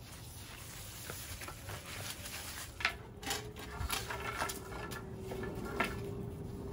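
Push broom's bristles scraping on a concrete patio while a puppy bites and tugs at the broom head, with claws scuffling. Several sharp knocks and scrapes come from about three seconds in.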